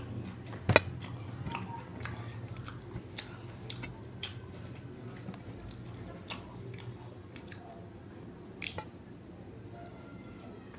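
Close-up eating sounds: chewing and wet mouth noises as jeera rice is eaten by hand, with fingers squishing through the rice on a steel plate. Scattered sharp clicks run through it, the loudest just under a second in and another near the end.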